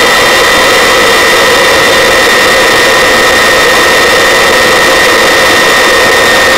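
Helicopter in flight: turbine engine and rotor noise, a loud steady rush with a steady high whine over it.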